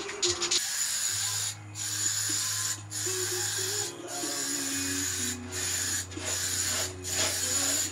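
A tool rasping on wood, sawing or sanding, in runs of about a second separated by brief breaks.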